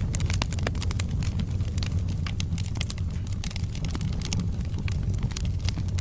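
Wood fire burning in a fireplace: a steady low rumble of flames with frequent, irregular crackles and pops from the burning logs.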